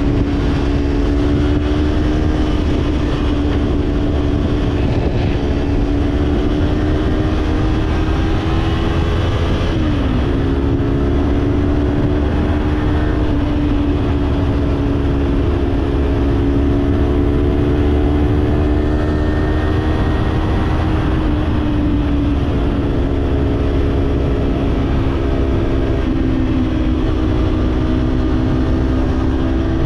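Kawasaki parallel-twin motorcycle engine running at cruising speed under steady wind and road rumble. Its pitch creeps up, drops sharply about ten seconds in, and then holds with small dips and a step down near the end.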